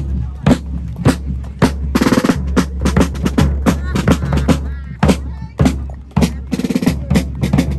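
Rope-tension snare drums and a bass drum of a marching fife and drum corps playing a cadence: many sharp strokes, with a quick roll about two seconds in.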